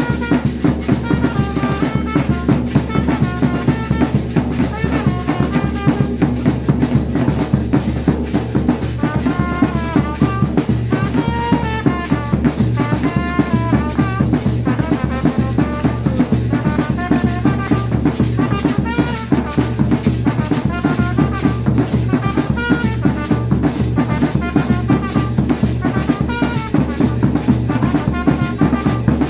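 Drum band of a bass drum and rope-tensioned side drums playing a steady beat, with a trumpet playing a melody over it.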